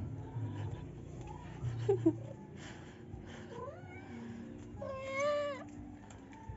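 Kitten meowing a few times, each call gliding in pitch; the longest and loudest meow comes about five seconds in.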